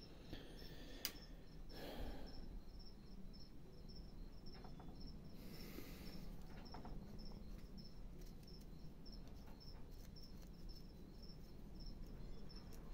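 Faint cuts and scrapes of a small hand gouge paring a wooden face carving, with a click about a second in. Behind it a cricket chirps steadily in even pulses, about three a second.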